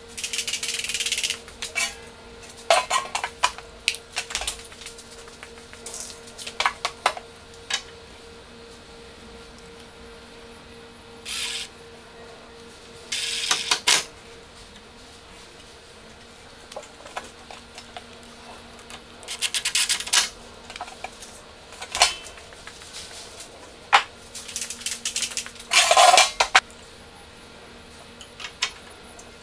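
Metal parts being handled: a steel motor bracket, small screws and washers clinking and rattling, with brief rustling, in scattered bursts over a faint steady hum.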